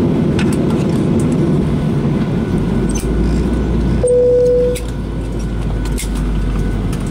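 Boeing 737-800 cabin noise with the jet standing on the apron: a steady rumble of engines and air conditioning with scattered light clicks. About four seconds in, a short steady tone sounds for under a second as the rumble drops off, leaving a lower, quieter hum.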